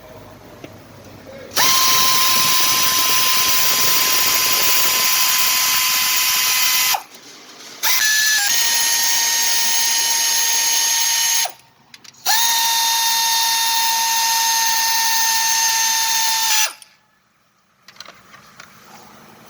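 A handheld power tool runs in three long bursts of about four to five seconds each, with a steady whine over a loud hiss and short pauses between them.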